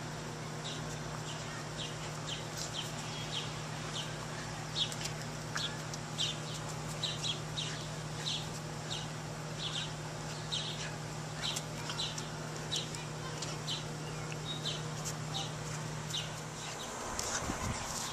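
Puppy's new metal dog tag clinking at its collar with each step, about two light, high clinks a second, over a steady low hum.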